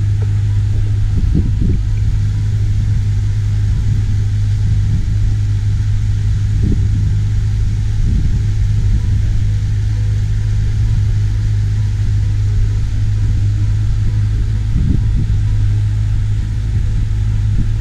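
Pontoon boat's outboard motor running steadily while cruising, a loud, even low hum.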